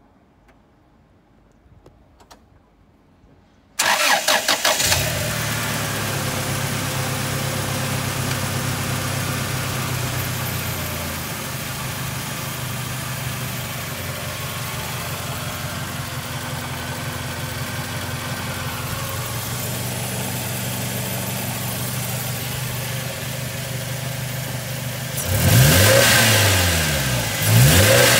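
1998 Toyota Hilux 2.7-litre EFI four-cylinder petrol engine cranking briefly and starting about four seconds in, then idling steadily and settling to a slightly lower idle after several seconds. Near the end it is revved twice, each rev rising and falling.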